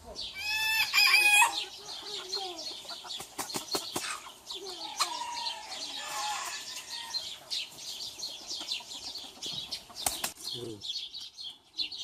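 A rooster crows once, loud and short, near the start, over continuous chirping of small birds. A few sharp clicks follow, and a fainter, lower call comes around five to six seconds in.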